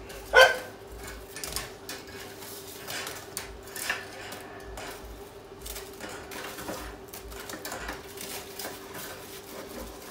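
A metal roast fork clinking and scraping against a stainless steel bowl as roast potatoes are forked into it, with one loud ringing clang about half a second in and lighter clinks after.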